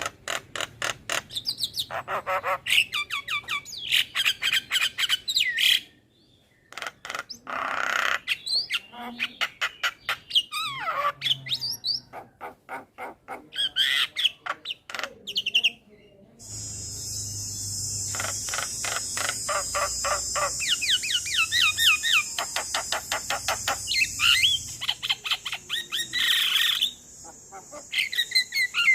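Male Javan myna calling: fast runs of clicking chatter mixed with short whistled notes and squawks. About halfway through comes a long harsh, rasping stretch of some ten seconds.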